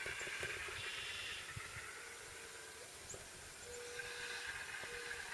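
Faint, distant RC model airplane on a landing approach: a thin whine from the plane over steady outdoor hiss. A faint steady tone comes and goes several times in the second half.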